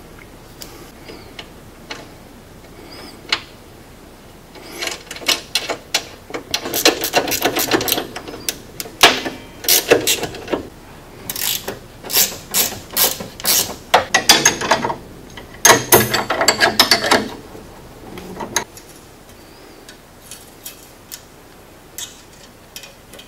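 Ratchet wrench clicking in quick runs with short pauses between strokes, running a nut down onto the bolt through the sway bar's end. Softer clicks and handling of the parts come before and after the runs.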